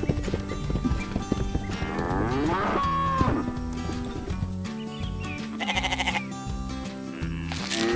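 Cartoon cow mooing, a drawn-out call about two seconds in, over background music.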